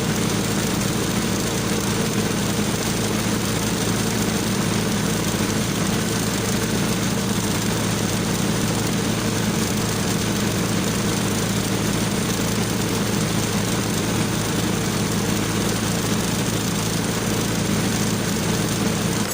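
An engine idling steadily, a constant low drone that neither rises nor falls.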